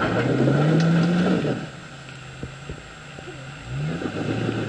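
Jeep engine revving under load while rock-crawling up a ledge. The pitch rises and holds for about a second and a half, drops back to idle, and rises again near the end.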